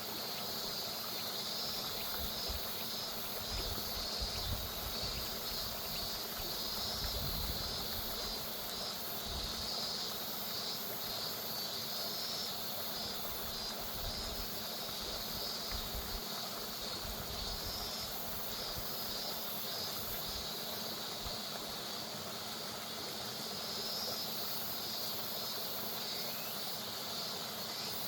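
River water flowing steadily, with cicadas buzzing in a high, pulsing drone over it.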